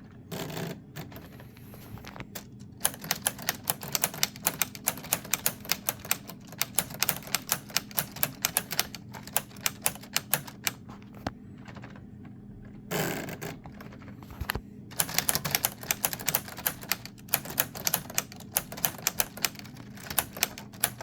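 A Lego brick-built typewriter being typed on: rapid runs of plastic keystroke clicks as its keys and typebars are worked. There is a pause near the middle, broken by a brief burst of sound.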